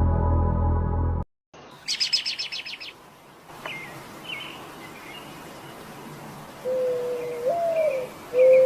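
Music cuts off about a second in, and after a brief gap birds chirp: a quick trill first, then scattered faint calls. Near the end a single pure melody line comes in, holding notes with a small rise in pitch.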